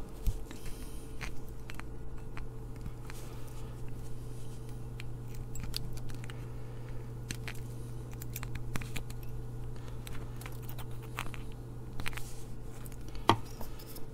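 Scattered sharp clicks and snips of hand work on a small circuit board, with side cutters trimming component leads, over a steady low hum. The loudest snap comes near the end.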